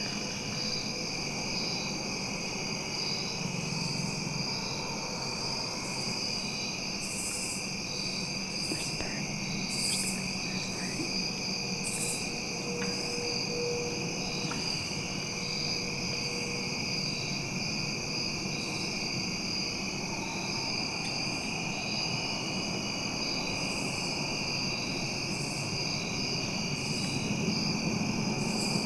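Steady, high-pitched trilling of an evening cricket chorus in autumn woods, with a faint regular pulse. A few short rustling hisses come through a few seconds in.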